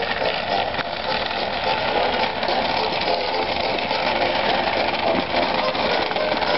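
Small toy wagon's plastic wheels rolling and rattling over rough asphalt as it is pulled along, a steady gritty rumble with the load of cans jostling.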